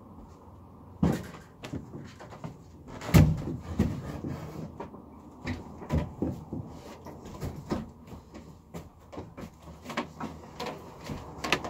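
Cupboard units being manoeuvred into a wooden workshop, bumping and knocking: a sharp knock about a second in, a loud thud about three seconds in, then a run of smaller knocks and bumps.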